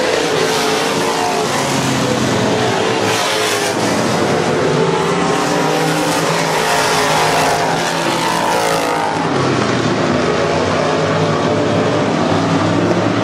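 Dirt late model race car's V8 engine running hard on a dirt oval, its pitch rising and falling again and again as the car lifts off for the turns and accelerates out of them.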